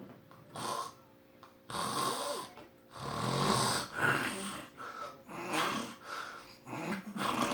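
A man snoring heavily while asleep sitting up: a run of loud, uneven snores and snorts coming every second or so, the longest and loudest in the middle.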